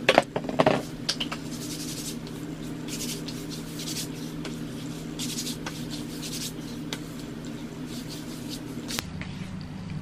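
A cluster of sharp knocks and handling noises in the first second, then soft, scattered rubbing and brushing of hands against skin and hair, over a steady low hum that changes about nine seconds in.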